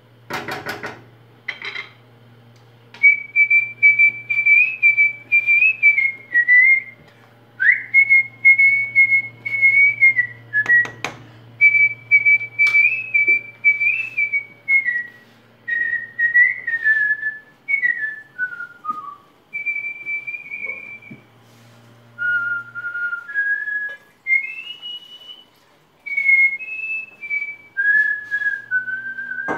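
A person whistling a melody, holding notes with short falling runs between them. There is a sharp knock just as it begins and another about eleven seconds in.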